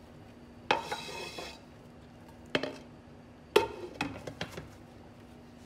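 A small monkey handles a zucchini on a kitchen counter: a brief rustle of paper and plastic, then a few sharp knocks and light ticks against the countertop. A faint steady hum runs underneath.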